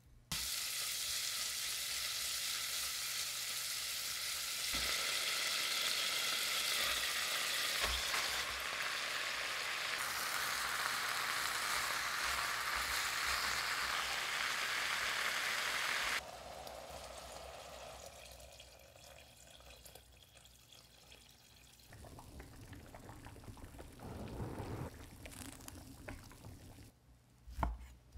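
Food sizzling in a hot frying pan, a steady hiss that cuts off suddenly about two-thirds of the way through, followed by quieter kitchen handling sounds and a few light knocks near the end.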